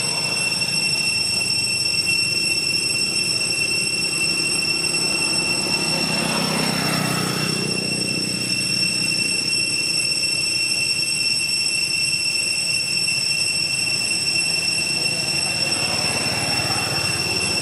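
A constant high-pitched whine over steady outdoor noise. About six seconds in, a vehicle passes on the road, its noise swelling and fading over about two seconds.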